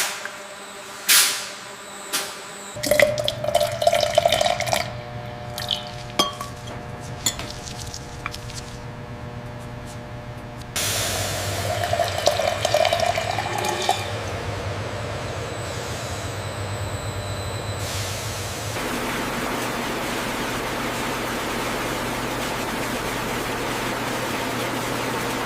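Food-processing machinery: sharp knocks and clinks over a steady machine hum, changing abruptly about a third of the way in and settling into a steady rushing noise in the last third, with a watery, dripping quality.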